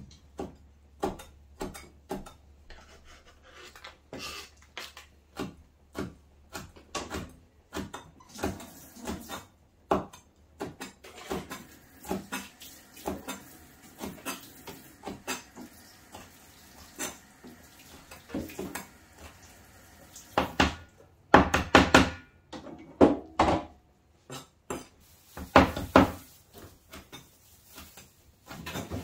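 Kitchen clatter of utensils and cookware knocking, in irregular single knocks about once or twice a second. About two-thirds of the way through come two louder runs of quick knocks.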